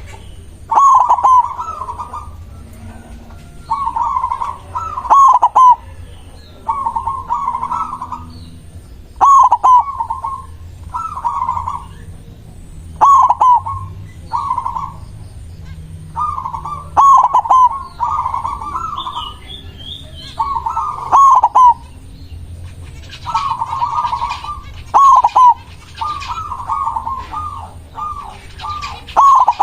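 Zebra dove (perkutut) cooing: short phrases of rapid, staccato coo notes, repeated about every two seconds.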